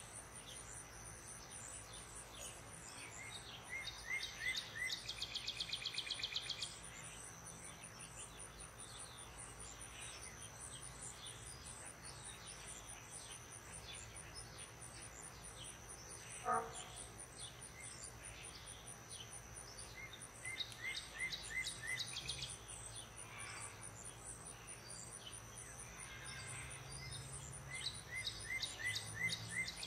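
Evening garden ambience: crickets trilling steadily and faintly throughout, and a bird calling in three bouts of quick repeated chirps that run into a rapid trill. One short sharp call comes midway.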